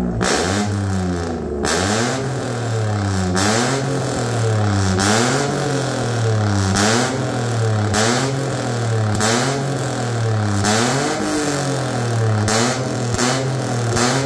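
Daihatsu Ayla 1.0's three-cylinder engine revved in repeated blips through a newly fitted aftermarket full exhaust (racing downpipe, resonator and muffler). Its pitch climbs and drops about ten times, roughly every second and a half.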